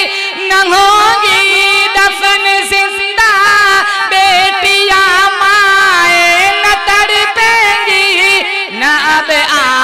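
A man singing a naat solo into a microphone, holding long drawn-out notes with wavering, ornamented turns in pitch, with short breaths about three seconds in and near the end.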